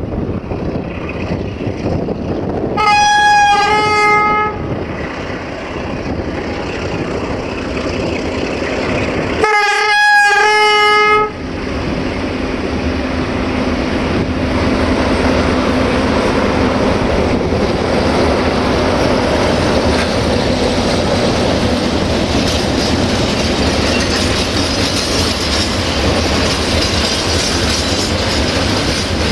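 CFR 060-DA (LDE2100) diesel-electric freight locomotive with a Sulzer engine, sounding two blasts on its horn about three and ten seconds in, each blast with two notes. Its engine then runs as it passes close by, and the loaded freight wagons follow, rolling by with wheel clickety-clack on the rail joints.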